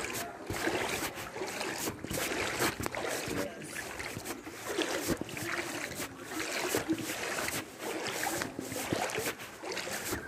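Shallow floodwater sloshing and splashing as something moves through it, in uneven surges about once a second.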